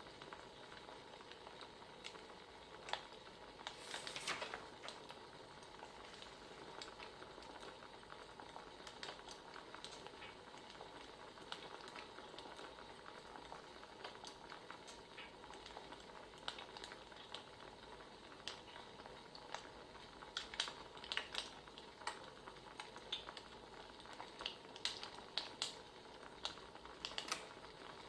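Wood fire crackling faintly under a steady hiss, with scattered sharp pops that come thicker near the end.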